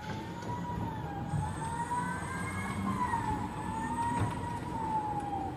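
STILL EK-X electric forklift driving, its electric drive giving a steady whine that drifts slowly up and down in pitch over a low rumble.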